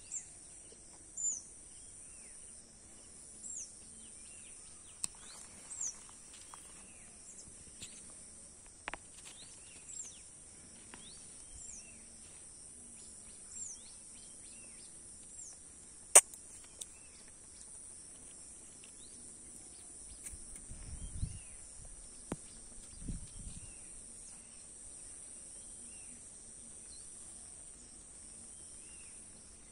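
Outdoor ambience of a steady high insect buzz, with repeated short falling bird chirps over it. A sharp click sounds about halfway through, and a few low thumps and rumbles come a little later.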